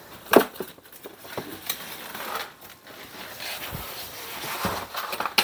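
A refrigerator door shutting with a knock just after the start. This is followed by scattered clicks and the creaking, crinkling handling of an egg carton as it is carried and set on the counter, with a sharp knock near the end.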